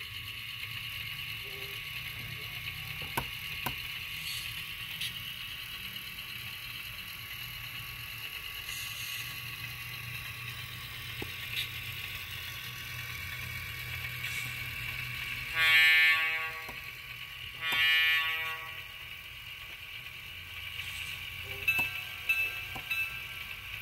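Model trolley's DCC sound decoder playing through its small onboard speakers: a steady electric hum, then two horn toots about two seconds apart, followed by a few short clicks near the end.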